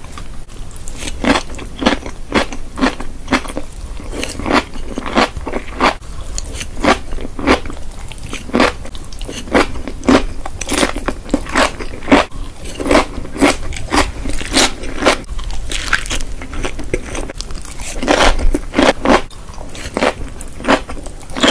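Crisp crunching of an accordion-cut cucumber being bitten and chewed close to the microphone, about two sharp crunches a second.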